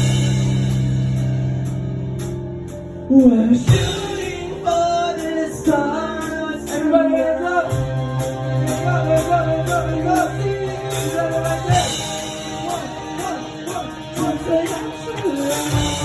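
Hard rock/metalcore song: a held low chord fades for about three seconds, then the band comes back in with a hard hit and a sung vocal line over guitars and drums.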